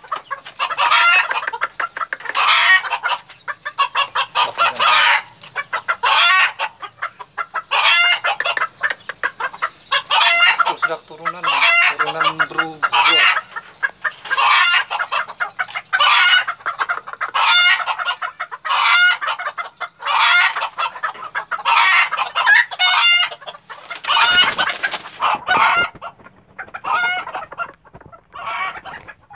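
Red junglefowl and brugo chickens calling, short clucks following one another about every half second to second, with rooster crowing among them.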